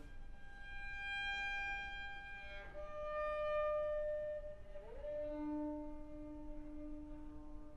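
Solo cello bowing slow, long-held notes one after another in a microtonal idiom drawn from Uzbek maqom scales. About five seconds in the bow slides up into a note, and a lower note is then held to near the end.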